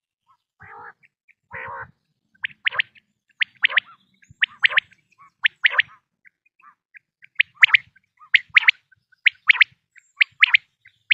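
Quail calling: short sharp two-note calls repeated about once a second, after two brief rougher sounds in the first two seconds.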